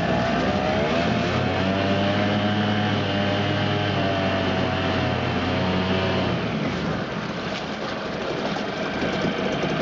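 Mercury 5 hp single-cylinder two-stroke outboard running in gear in a test barrel, its propeller churning the water. The engine speeds up about a second in, holds steady, then drops back about two-thirds of the way through.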